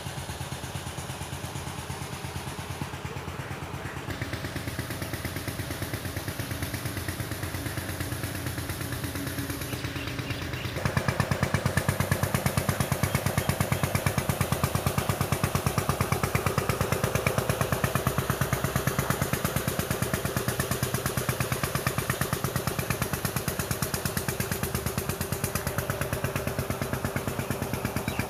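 A small stationary engine running steadily with an even, rapid pulse. It grows louder about eleven seconds in and stays so.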